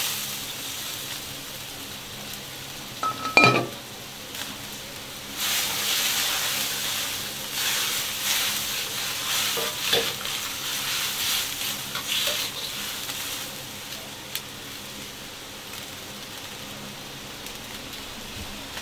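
Napa cabbage and bean sprouts in a wok of bubbling chili broth, sizzling as a steel ladle stirs and scrapes them through for several seconds. A single ringing metal clang comes about three seconds in, before the stirring gets busier.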